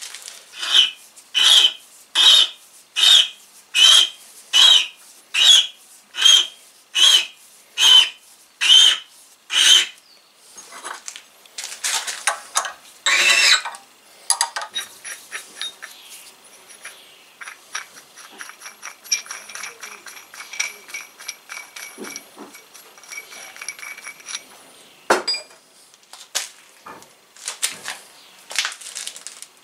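Home-made 9/16 x 8 Acme tap cutting a thread in a brass nut, turned by hand in short strokes: a squeak with each stroke, about one and a half a second, for the first ten seconds. After that come rustling, a faint steady high whine, a sharp click and scattered light clicks as the tap is worked through and backed out.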